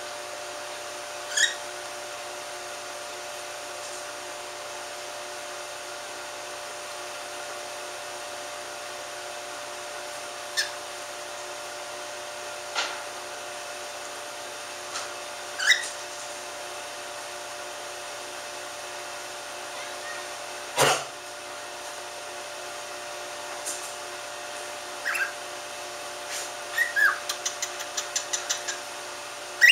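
Cockatiel giving short, scattered chirps over a steady background hum, ending in a quick run of rapid chirps. One louder, sharp sound stands out about two-thirds of the way through.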